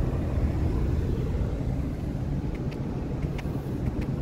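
Pickup truck cruising on a snow-packed ice road, heard from inside the cab: a steady low rumble of engine and tyres, with a few faint clicks in the second half.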